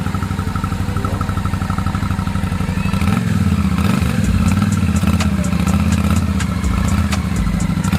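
Royal Enfield Shotgun 650's parallel-twin engine running at idle, its note shifting and getting a little louder about three seconds in.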